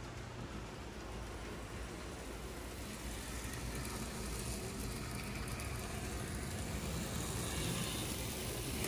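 Steady indoor background noise: a low rumble under a hiss, growing a little louder and brighter about three seconds in.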